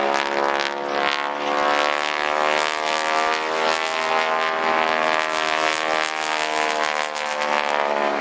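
Piston engine and propeller of an aerobatic biplane flying a display overhead: a steady engine note that wavers slightly in pitch.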